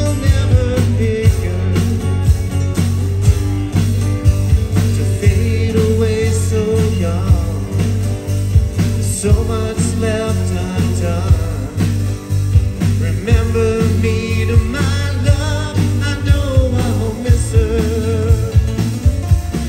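Live rock band playing: acoustic guitar strumming, keyboard and a drum kit keeping a steady beat, with a sung lead vocal.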